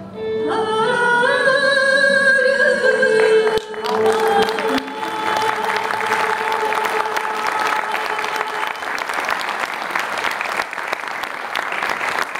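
Female solo voice holding the song's final note with vibrato over the choir and ensemble, cutting off sharply about three and a half seconds in. Audience applause follows and carries on, with a held note still sounding faintly under it for a few seconds.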